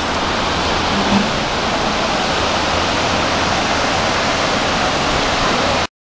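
Steady rushing roar of sea surf breaking on the beach below a cliff, cut off abruptly near the end.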